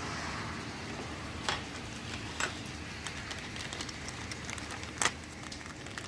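Plastic packaging crinkling as a small bag of hardware is handled, with three sharp clicks of small parts, over a steady low hum.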